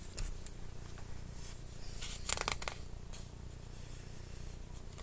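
A picture book's page being turned: a brief papery rustle about two and a half seconds in, over a low steady room hum.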